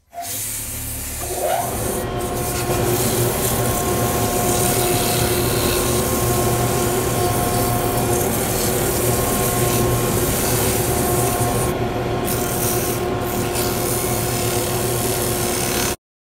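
Sandpaper rubbing on a segmented wood bangle spinning on a mini lathe: a continuous scratchy sanding sound over the steady hum of the lathe and shop vacuum motors. The hum rises in pitch about a second in as a motor comes up to speed, and the sound cuts off abruptly near the end.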